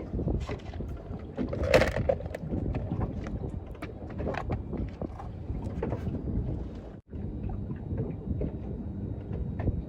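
Wind on the microphone and water slapping against the hull of a small fishing boat, with scattered knocks and taps. There is a louder clatter just under two seconds in and a brief drop-out at about seven seconds.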